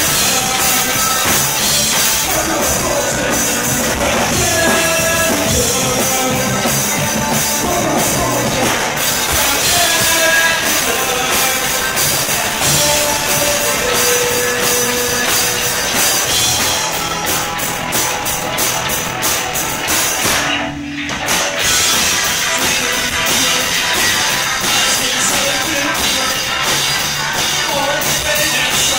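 Live rock band playing: electric guitar, bass and drum kit, with a vocalist singing over them. The sound breaks off for a moment about two-thirds of the way through, then comes straight back in.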